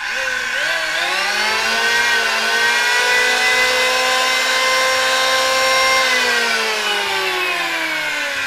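Makita 580 W electric planer switched on: its motor whines up to full speed within about two seconds and runs steadily. About six seconds in it is switched off and winds down, the whine falling in pitch as the cutter drum coasts.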